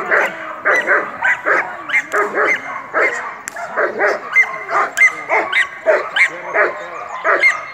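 Belgian Malinois barking rapidly and excitedly while held back on the leash, two or three high-pitched barks a second with yips between them: a dog worked up by a helper's agitation in protection training.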